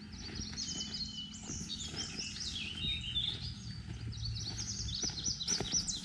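A songbird singing a long, rambling song of quick chirping and sweeping notes that runs almost without a break. Soft footsteps on a dirt track can be heard beneath it.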